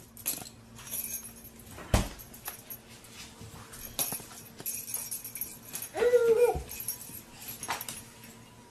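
Dog whining once, briefly, about six seconds in, amid light jingling and clicking as it plays with a toy; a sharp knock comes about two seconds in.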